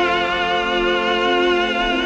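Classical music: one long held chord with a wavering vibrato on its top notes, in an operatic passage.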